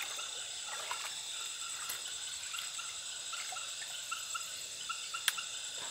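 Night chorus of insects and frogs: steady high-pitched insect trilling, with short chirps repeating about two or three times a second. A single sharp click comes near the end.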